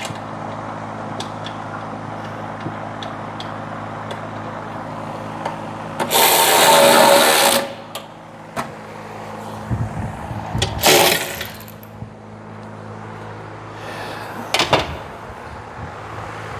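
A steady low mechanical hum, with two loud bursts of noise about six and eleven seconds in; the first lasts about a second and a half.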